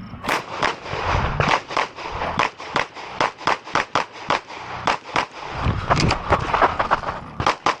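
Rapid pistol fire from a 9mm Glock 17 Gen 6 during a USPSA stage: a long string of sharp shots, several a second, fired in quick groups with short pauses between them.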